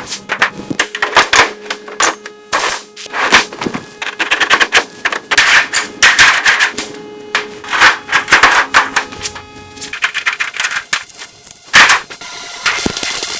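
Metal repair work: irregular sharp metallic knocks and clatter, some in quick rattling clusters, with faint ringing from the struck metal.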